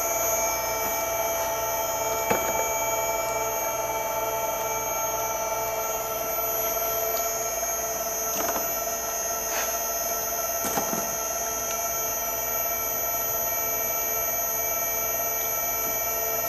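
Electric screw oil press crushing Fendler's bladderpod seed, its motor and gear reducer running steadily at about half speed with a steady whine of several held tones. A few faint clicks from the press about two, eight and a half, nine and a half and eleven seconds in.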